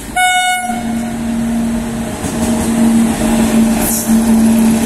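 Indian Railways WAP-7 electric locomotive passing close by at speed: a brief high horn note right at the start, then a steady low hum over the continuous rumble of its wheels on the rails.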